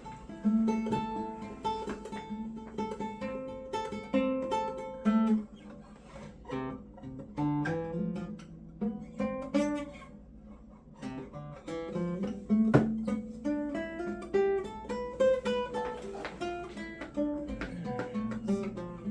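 Acoustic guitar being played: a melody of individually picked notes, with some chords.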